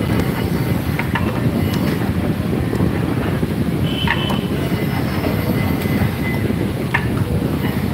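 Steady low mechanical rumble, with scattered clicks and a few short high squeaks.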